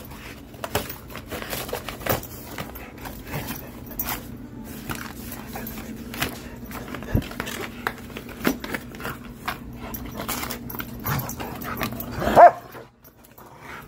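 Dog ripping and chewing a cardboard box, with a run of tearing, crackling and scraping. About twelve seconds in the dog gives one short, loud yip.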